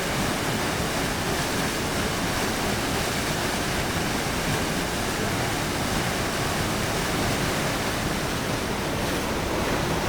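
Rushing whitewater of a swollen mountain stream, a steady, even rush of water.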